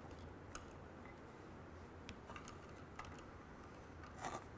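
Faint scattered clicks and taps as a laser-cut wooden faceplate and a crimped ring-terminal wire are handled, with a short cluster of slightly louder clicks about four seconds in.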